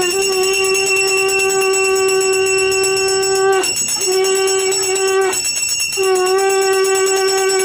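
A conch shell (shankh) blown in three long, steady blasts for a Hindu puja. The first blast is already sounding at the start and breaks off about three and a half seconds in. A short blast follows, then a pause of about a second, then a third blast from about six seconds in. A continuous high ringing runs underneath.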